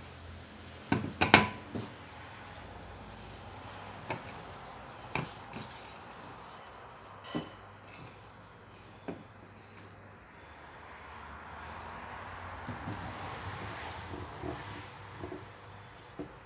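Steady high-pitched trill of a cricket, with a few sharp knocks and clatters of things being handled; the loudest knock comes about a second in.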